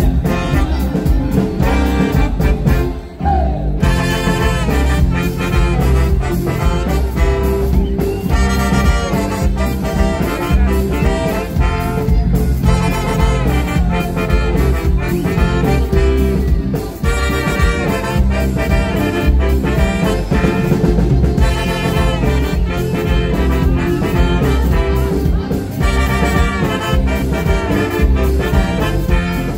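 Live band playing an upbeat brass-led tune: trombone, saxophone and trumpets over drums, bass and electric guitar, with a brief break about three seconds in.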